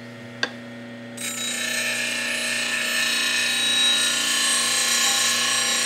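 Bench grinder running with a steady hum; after a light click about half a second in, a steel spindle gouge is pressed against the CBN wheel from about a second in, giving a steady, even grinding that holds as a flat is ground onto the gouge.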